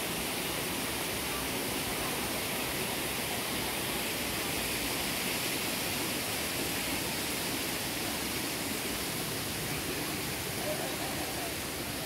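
Steady rush of flowing water from the hot spring, an even hiss with no breaks, with faint distant voices.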